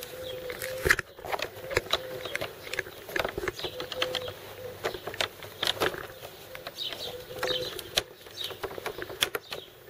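Irregular clicks and knocks of metal connector fittings and wooden frame bars being handled and latched together while assembling a folding kayak frame, with one sharp knock about a second in.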